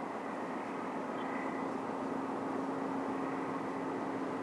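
Container ship's engines running as it passes: a steady drone with a constant hum tone over a wash of noise.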